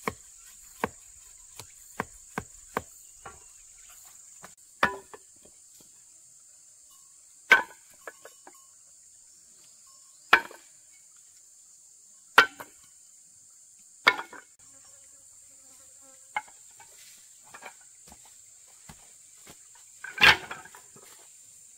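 Tool blows striking wood: a quick run of light knocks for the first few seconds, then single heavier strikes every two to three seconds, the loudest near the end. Under them runs a steady high-pitched chirring of forest insects.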